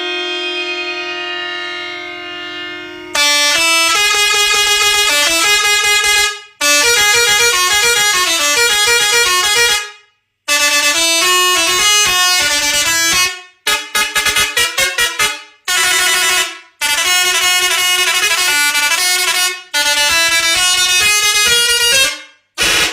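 Pakistani multi-tone musical truck horn being tested. It first holds one steady note for about three seconds, then plays loud runs of notes stepping up and down, broken by short pauses. About halfway through comes a quick burst of short rapid toots.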